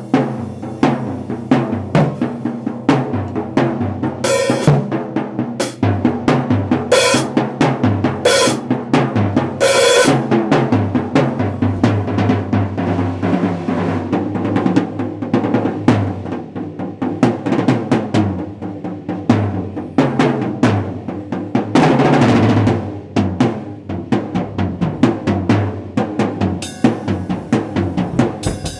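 Acoustic drum kit played in a fast solo: rapid rolls over snare and toms driven by bass drum strokes. Five cymbal crashes come about a second and a half apart between roughly four and ten seconds in, and a longer cymbal wash comes later on.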